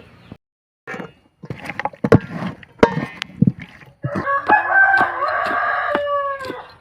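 A rooster crows once about four seconds in: a single call of about two seconds that drops in pitch at the end. Before it comes a run of short, sharp knocks and clicks.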